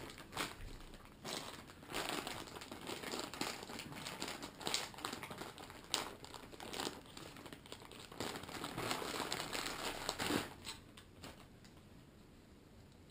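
Clear plastic packaging bags crinkling and crackling irregularly as they are handled and opened. The crinkling dies down about ten seconds in.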